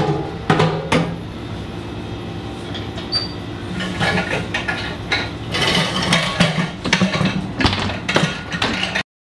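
Knocks and clatter of a large stainless-steel mixing bowl being handled, with a few sharp knocks at the start and busier clattering in the second half, over a steady machine hum. The sound cuts off suddenly near the end.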